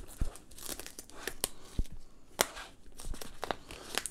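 Cardboard product box being handled and shifted on a tabletop: a series of scattered light clicks and taps with faint rustling between them.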